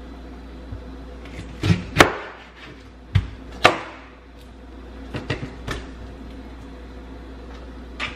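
A few sharp knocks of a chef's knife and pineapple pieces on a plastic cutting board as the pineapple is cut, with the loudest about two seconds in and lighter taps around five seconds and near the end.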